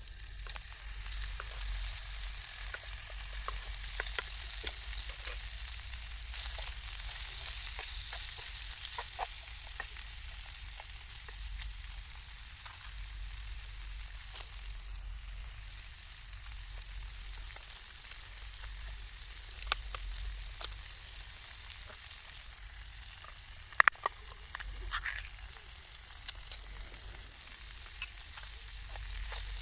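Food frying and sizzling in a pan, a steady hiss with scattered crackles and pops; two sharp knocks, the loudest sounds, come late on.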